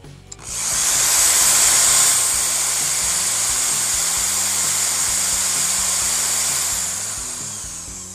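Electric drill running unloaded, turning an angle grinder's bevel-gear head through the grinder's armature shaft: a steady high-pitched whir that starts about half a second in and winds down near the end.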